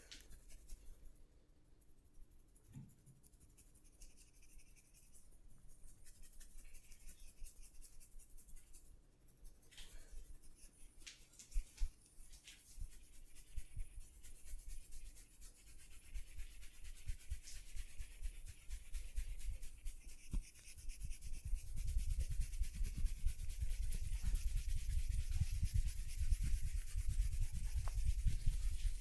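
Massage: hands rubbing and working over skin, quiet at first, then building in the second half into a fast run of soft low thumps.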